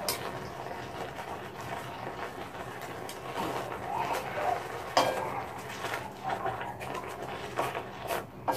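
Long wooden chopsticks stirring and tossing bean sprouts in a shallow electric pan of heating broth, over a steady hiss. A few sharp clicks of the chopsticks against the pan stand out, the loudest about five seconds in.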